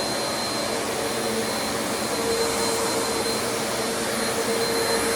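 Bissell vacuum cleaner running steadily, an even whooshing whir with a steady motor hum and a thin high whine above it.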